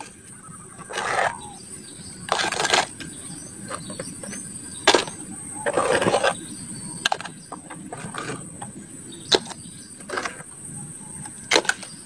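Toys being gathered from a muddy pile: a handful of sharp knocks and clatters spread every second or two, with a few brief scraping rustles.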